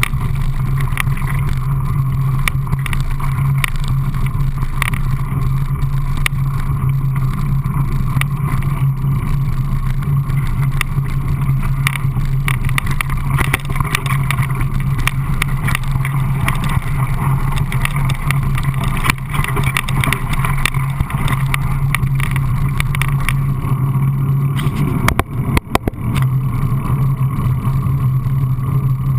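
Mountain bike riding fast over a gravel trail, heard from a camera mounted on the bike: a steady low drone of wind and rolling tyres with frequent small knocks and rattles from the bike over stones. Near the end the drone briefly drops away with a few sharp clicks.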